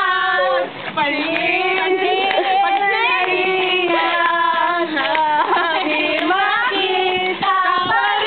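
A group of girls singing together, loud and in a high register, holding long notes that slide up and down in pitch.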